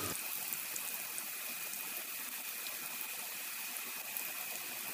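Keema samosas deep-frying in hot oil in a pan: a steady sizzle with small scattered crackles.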